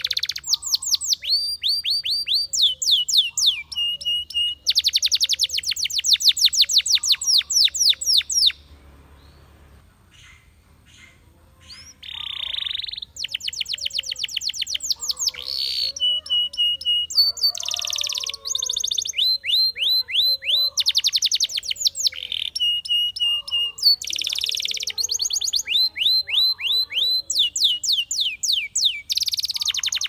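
Spanish Timbrado canary singing: fast trills of quick falling notes alternating with steady held whistles. The song breaks off for about three seconds around a third of the way in, then resumes.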